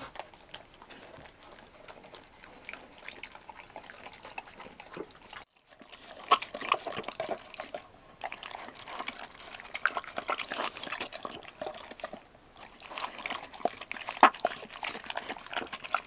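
A dog eating from a bowl, lapping and chewing in quick, irregular wet clicks, with a brief break about five and a half seconds in.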